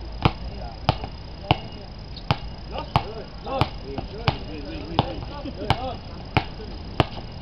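A basketball being dribbled on an outdoor hard court: a sharp bounce about every two-thirds of a second, steady and even, with faint voices of players in the background.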